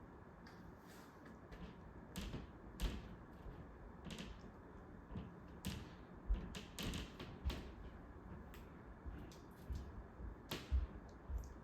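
Faint steady air noise of a running ceiling fan, under irregular sharp clicks and taps, some with a dull low thump.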